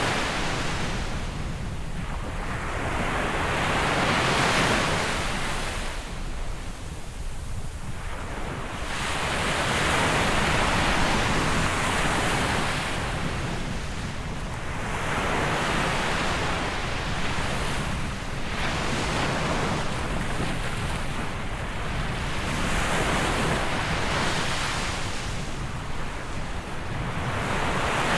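Surf breaking on the shore, each wave a rushing swell that rises and fades about every five to seven seconds, with wind rumbling on the microphone underneath.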